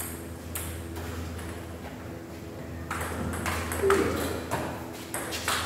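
Table tennis ball being hit back and forth, sharp clicks of ball on rubber paddles and table. A couple of faint hits come early, then a pause of about two seconds, then the rally's hits resume about three seconds in, under a steady hum.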